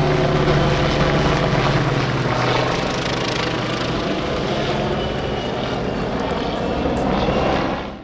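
An aerobatic propeller airplane and a helicopter flying close together: a steady drone of the piston engine and propeller mixed with the helicopter's rotor and turbine noise. It fades out at the very end.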